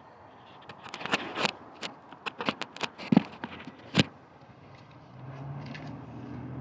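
Clicks and scrapes of handling the gasoline pressure washer, with a sharp knock about four seconds in. A steady low hum of an engine running somewhere begins about a second later.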